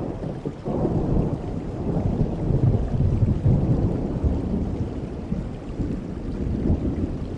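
A long roll of thunder over steady rain. The low rumble builds about a second in, is loudest around the middle and fades away toward the end.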